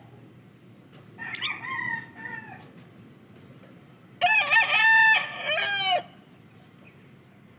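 A rooster crowing twice: a fainter crow about a second in, then a louder, longer cock-a-doodle-doo about four seconds in that trails off at the end.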